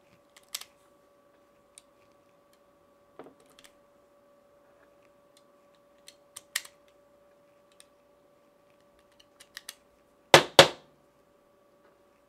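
9mm cartridges clicking one at a time into a Glock 19 magazine as it is loaded by hand: a sharp click every few seconds as each round is pushed down past the feed lips, with the two loudest clicks close together near the end, over a faint steady hum.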